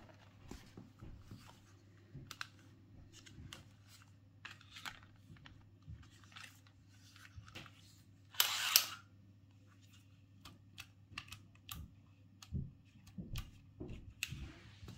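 Light clicks and taps of a hard plastic toy figure being handled and turned over, with one brief louder noisy burst a little past the middle.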